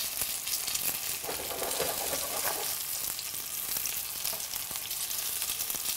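Breaded pollock goujons shallow-frying in hot oil in a pan: a steady sizzling hiss with many small crackling pops.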